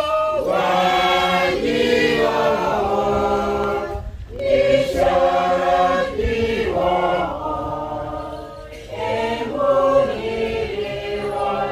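A group of people singing a hymn together without instruments, in phrases with short breaks about four and nine seconds in.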